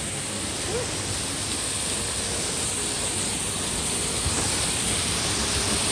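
Steady rushing water of a waterfall, an even noise that grows slightly louder toward the end.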